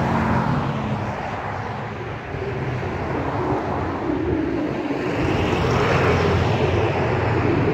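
Road traffic passing: vehicles go by one after another, their engine and tyre noise swelling and fading, the loudest pass building from about halfway through.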